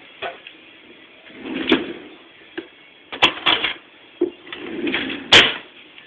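A series of knocks and clunks, about six in all, the loudest near the end, over a steady low hum.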